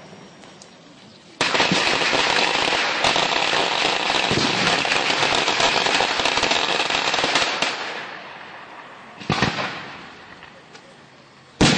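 Firecrackers crackling in a dense, rapid string, used as battle effects to stand in for gunfire during a river-crossing re-enactment. The crackle starts abruptly after about a second and a half and dies away some six seconds later, followed by two single sharp bangs near the end, the last one the loudest.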